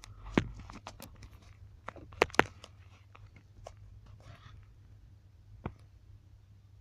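Creaking and clicking from a Daewoo Lanos 1.5's steering as the wheel is worked: a sharp creak about half a second in, two more close together a little after two seconds, and one near the end, with softer scraping between, over a low steady hum. It is a steering creak whose cause the owner has not found.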